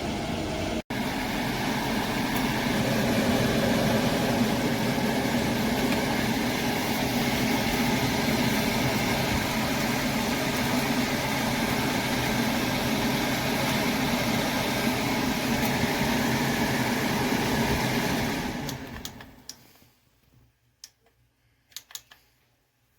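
6-inch window exhaust fan running with a loud, steady whooshing hum, which dies away over a second or two near the end as it stops. A few faint clicks follow.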